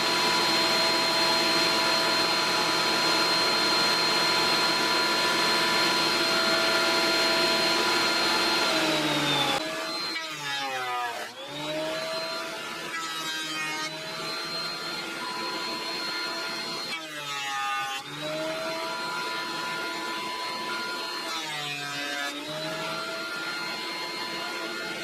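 Thickness planer's brush-type motor and cutterhead running. For the first nine seconds or so there is a loud, steady whine over a rushing cutting noise. Then it turns quieter, and the motor's pitch dips and recovers several times.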